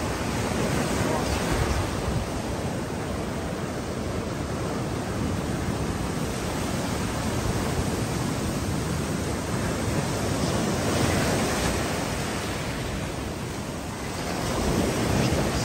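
Rough surf at high tide: waves breaking and washing up over sand and rocks in a continuous rushing that swells and eases, with a louder surge near the end.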